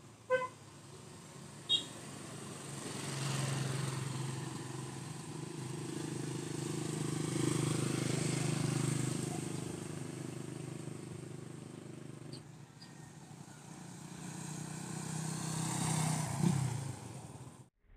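Motorcycle engine running, its steady note swelling as it approaches, easing, then growing louder again to a peak as the bike passes near the end, where the sound cuts off suddenly. Two brief sharp clicks come in the first two seconds.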